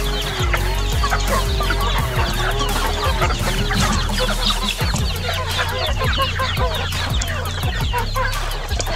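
A flock of chickens clucking, with many quick, high peeps from chicks, as the birds crowd around their feed. A steady low hum runs underneath, and a wavering tone fades out about four seconds in.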